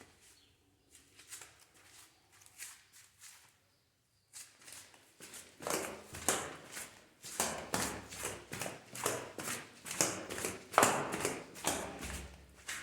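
Flip-flops slapping against bare heels and the stair treads as someone runs on a staircase: faint at first, then from about five seconds in loud, quick, even slaps, two to three a second.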